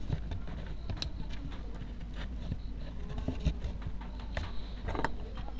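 Faint clicks and light knocks from hands handling a plastic lamp housing and its wires, sharpest about a second in and again near the end, over a steady low hum.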